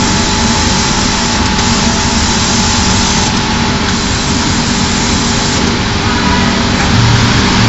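Machinery running: a steady mechanical noise with a constant hum, with a stronger low hum coming in briefly near the end.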